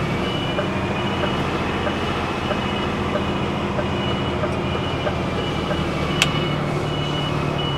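HGV reversing alarm beeping, a short high beep repeating a little faster than once a second, over the lorry's diesel engine running at low revs while it backs up. A single sharp click about six seconds in.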